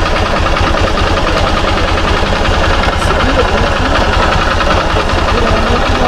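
Small motorcycle engine idling steadily, with an even low-pitched firing pulse and no revving.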